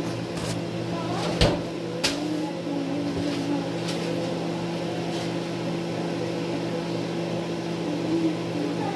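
A steady mechanical hum holding several fixed low tones, with two sharp clicks about a second and a half and two seconds in.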